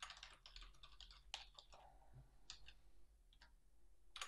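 Faint typing on a computer keyboard: an irregular run of key clicks, thick at first, sparser in the middle, with a few louder clicks near the end.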